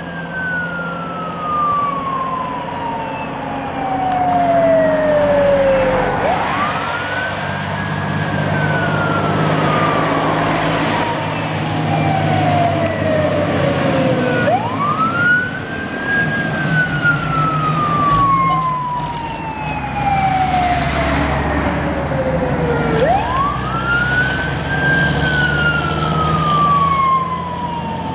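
Star 266 fire engine on an emergency run, its siren wailing in slow cycles that climb quickly and then fall slowly, about every eight seconds, over the steady hum of the truck's engine.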